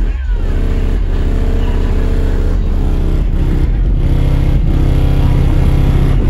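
Loud bass-heavy music with a deep low end and sustained bass notes that change every second or so.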